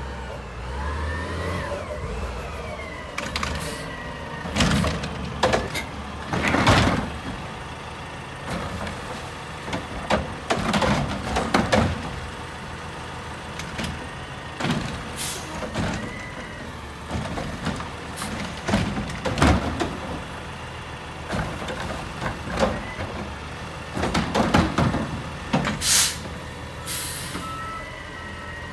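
Front-load garbage truck with a Curotto Can automated arm stopping with an air-brake hiss, then its engine revving to run the hydraulics as the arm grabs and tips the residential carts. There are repeated loud clanks and bangs of carts and steel striking, in clusters every few seconds.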